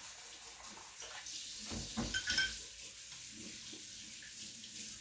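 Kitchen sink tap running a steady stream of cold water while dishes are washed, with a couple of dish clinks about two seconds in.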